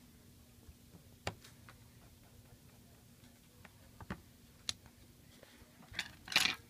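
Scattered light clicks and taps from handling an iPad and small repair tools on a workbench, ending in a louder short clatter and scrape near the end.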